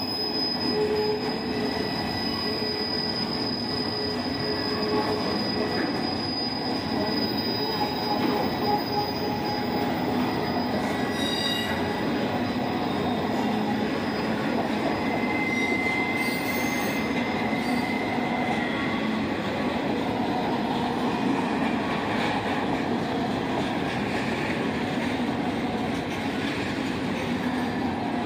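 Intermodal freight train of double-stack container cars rolling past at steady speed with a continuous rumble of wheels on rail. Steel wheels squeal over it with thin, high, steady tones that fade in and out.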